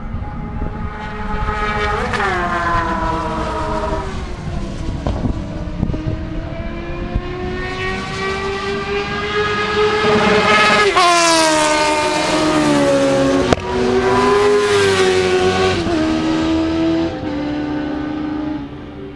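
Motorcycles passing at high speed on a racetrack straight, one after another, their engines revving high and dropping sharply in pitch as each goes by. Near the end the engine note falls in steps.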